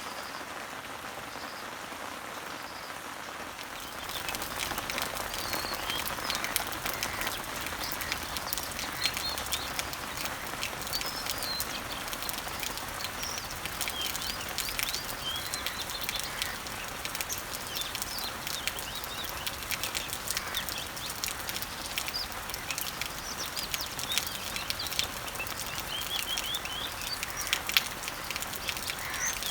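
Rain pattering and dripping on garden leaves, with birds chirping over it. The rain grows louder about four seconds in.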